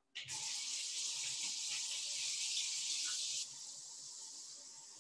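Faucet running into a sink for hand washing, a steady rush of water; about three and a half seconds in the flow drops to a softer, quieter stream.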